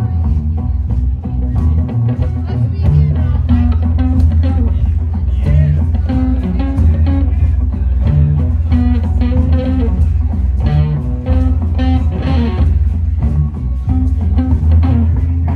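Live amplified music: guitar with a heavy, steady low end and drums.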